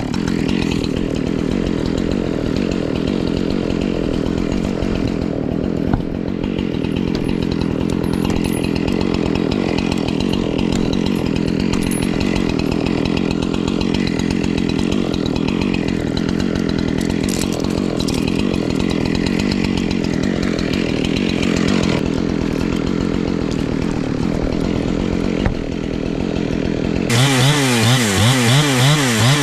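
Chainsaw running steadily through a cut. Near the end its engine pitch swings rapidly up and down several times.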